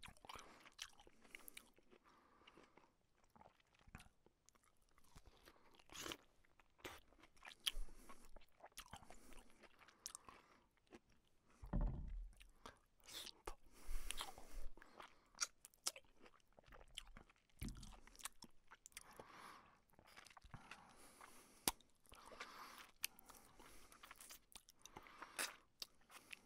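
A person eating and slurping soup close to the microphone: irregular wet mouth clicks and chewing, with a few short slurps and occasional soft low thumps.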